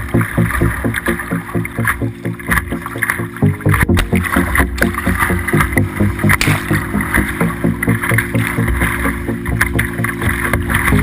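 Whitewater rushing around a kayak running river rapids, heard from the bow, under a steady low pulse of about four beats a second.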